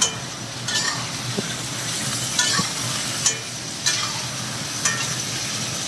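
Raw chicken pieces sizzling in hot ghee in a metal karahi while a metal spatula stirs them, scraping against the pan several times. This is the early bhunna stage of frying the chicken in ghee.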